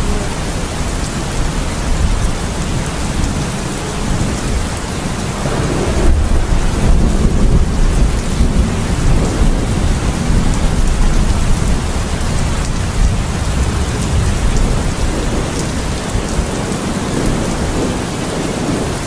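Rain and thunderstorm ambience: a steady hiss of rain with low thunder rumbling underneath, swelling louder about six seconds in.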